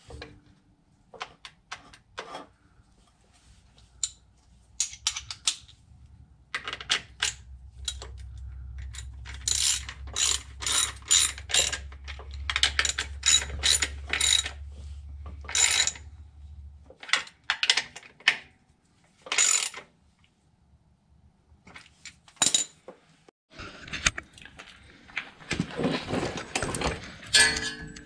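Socket ratchet clicking in short, irregular runs as bolts on the shifter cable bracket at the transmission are turned, with metal tool clinks and some clattering near the end.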